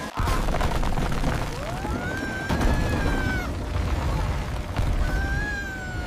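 Cartoon sound effect of a brick wall collapsing: a continuous low rumble of tumbling bricks and debris. Two drawn-out high tones glide up and fall away over it, about two seconds in and again near the end.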